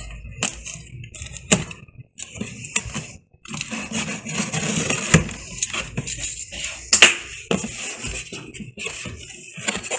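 Utility knife slicing the packing tape on a cardboard printer box, with a few sharp clicks, then cardboard flaps being pulled open, scraping and rustling, with two louder knocks partway through.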